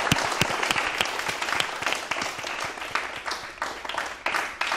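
An audience of schoolchildren applauding. The applause thins near the end into a few separate claps.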